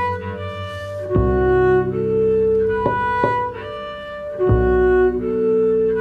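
Solo double bass playing: deep sustained notes under long ringing higher tones, cut by sharp percussive knocks. The phrase repeats about every three and a half seconds.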